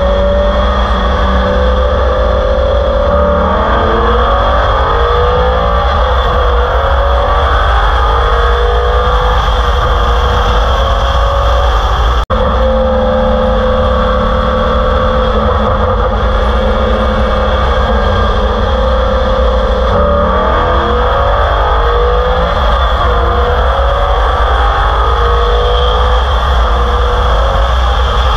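Modified Corvette C6 Z06's LS7 V8 with heads, cam and intake, long-tube headers and straight-piped exhaust, running on E85, heard through wind rush at highway speed: it cruises steadily, then its pitch climbs as it goes to full throttle, twice, with a brief cut about twelve seconds in.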